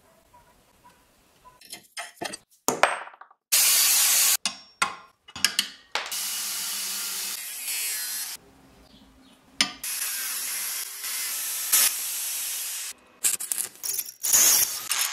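An angle grinder cutting a steel bracket, heard in quick edited cuts: several stretches of steady hissing grinding, with short scrapes and clatters of metal tools between them, after a nearly quiet first second or so.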